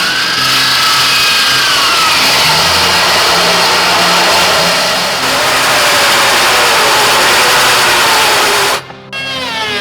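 A power woodworking tool's motor running loud as it cuts wood, its whine holding and then sagging in pitch under load. It stops abruptly about nine seconds in.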